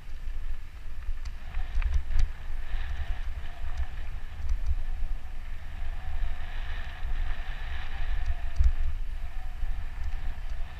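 Mountain bike being ridden along dirt singletrack. Wind buffets the camera microphone in an uneven rumble, and the bike over rough ground adds scattered clicks and rattles, with a faint steady whir underneath.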